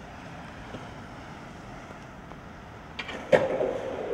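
Steady faint outdoor hiss; about three seconds in, a couple of sharp clacks as a skateboard comes down onto concrete, then the steady rumble of its wheels rolling.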